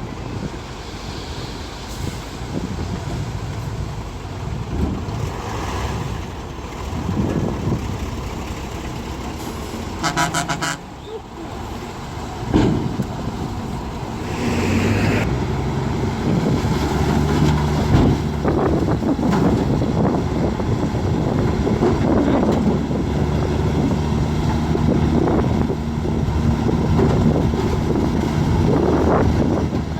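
Heavy diesel engines of earthmoving machinery working, with scattered clanks. There is a brief tone about ten seconds in, then a short hiss, after which the engine note runs louder and steadier.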